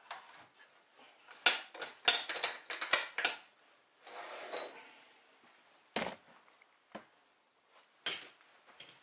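Steel parts clinking and clattering as they are handled at a metal lathe: a run of sharp metallic clinks, a short scrape about four seconds in, a single clack about six seconds in, and a few more clinks near the end.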